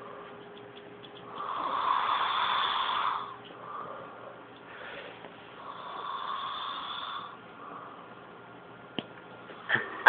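A person snoring in their sleep: two long snores about four and a half seconds apart, with a short click near the end.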